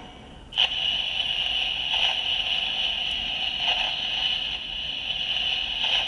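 Electronic special-attack sound effect of the Budou Ryuhou toy gun, played through its small built-in speaker: a steady rushing noise that starts suddenly about half a second in and carries on, after the standby sound has stopped.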